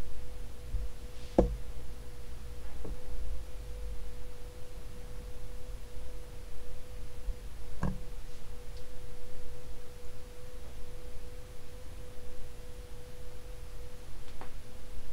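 Commander Angel 52-inch ceiling fan running on a D.E.M.C. five-speed control: a steady motor hum over a low rumble, with no bearing noise, its bearings being nearly perfect. A sharp click comes three times: once near the start, once in the middle and once near the end.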